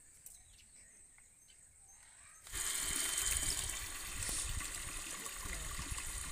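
Water running steadily from a garden hose, starting suddenly about two and a half seconds in; before that, near silence with a few faint clicks.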